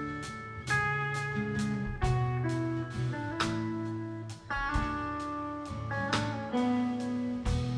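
Instrumental music led by guitar, with a steady beat of about two strokes a second over sustained bass notes, and no singing.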